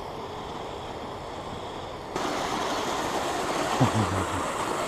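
Kyosho Blizzard FR RC tracked snow machine running over snow, its rubber tracks and motors making a steady noise that turns suddenly louder and brighter about two seconds in. There is a short low sound near four seconds in.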